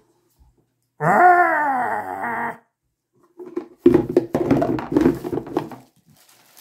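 A loud creature-like growl lasting about a second and a half, its pitch falling, that starts and stops abruptly. About a second later comes some two seconds of paper and plastic packaging rustling and crinkling.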